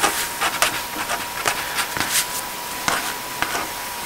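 Pen writing on paper: a run of short, irregular scratches and taps as words are written out by hand.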